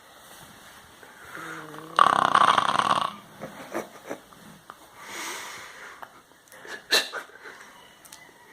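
Sleeping dog snoring like a person: one loud, harsh rasping snore about two seconds in that lasts about a second, then a softer breath a few seconds later. A sharp click comes about seven seconds in.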